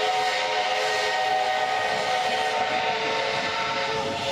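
Steam locomotive whistle blowing one long, steady chord of several tones, over a hiss of steam.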